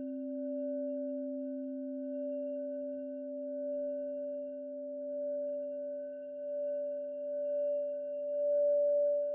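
Singing bowl ringing in a long sustained tone, a low and a higher pitch held together with a slow wavering pulse in loudness; the higher tone swells near the end.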